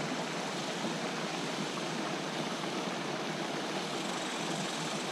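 Steady, even outdoor background hiss with no distinct sounds in it.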